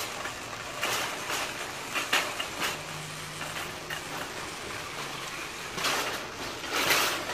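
Wire shopping cart pushed over a concrete sidewalk, its wheels and metal basket rattling, with louder clattering near the end as it is nested into a row of carts.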